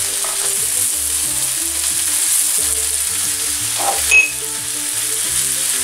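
Diced pancetta and shallot sizzling in olive oil in a frying pan as they brown, with a short clink about four seconds in.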